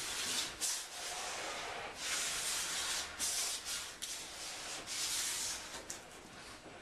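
Piano accordion's bellows pushing air through without sounding a note, a breathy rushing hiss that comes in gusts of about half a second to a second and fades near the end.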